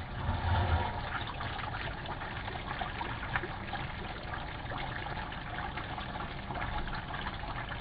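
Stuffed tinda (round gourd) masala curry simmering in oil in an aluminium pot: a steady sizzle and bubbling with many small crackling pops. A brief low bump comes about half a second in as the pot lid is lifted off.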